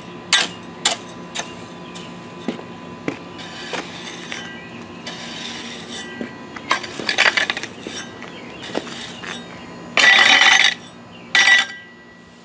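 Metal garden hoe scraping and raking loose bagged blacktop patch over concrete and gravel, gritty scrapes with sharp clinks of the blade against stones. A longer, louder scrape comes about ten seconds in, and a shorter one soon after.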